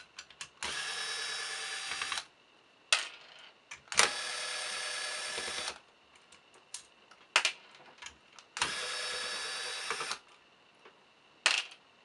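Corded electric screwdriver whirring in three runs of about a second and a half each as it backs screws out of a lock's housing, with sharp clicks and taps from handling the tool and parts in between.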